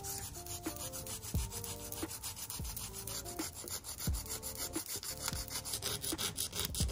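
Emery-board nail file rubbing quickly back and forth across the edge of a plastic false nail tip, shaping it down, in a fast even run of scratchy strokes, several a second.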